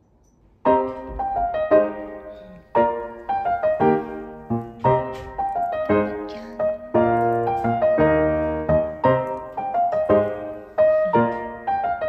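Background piano music that starts about a second in, a gentle melody of struck notes each ringing out and fading.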